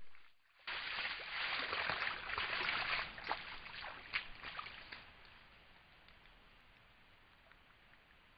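Red deer stag splashing in a muddy wallow, pawing the water with a foreleg: a run of sloshing and sharp splashes that dies away after about five seconds to a faint hiss.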